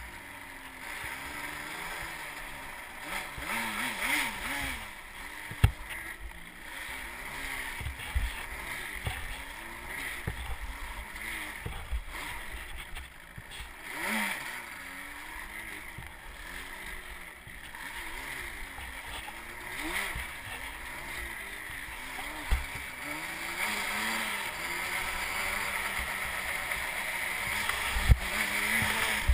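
Quad bike engine revving up and down over and over as the throttle is worked on a rough dirt track, over a steady rush of wind and rattle. Sharp knocks from bumps stand out about six seconds in and again near the end.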